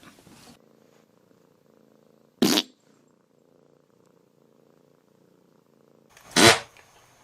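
A cat purring faintly, broken twice by a short, sharp burst of sound, about four seconds apart. The second burst is the louder.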